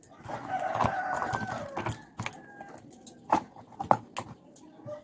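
A rooster crowing for about two seconds near the start. Then several sharp clicks of small tools being handled.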